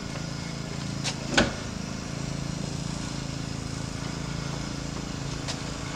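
A few short sharp clicks as a small plastic screw bolt and tail-light fittings are handled inside a car's trunk lid, the loudest about a second and a half in, over a steady low mechanical hum.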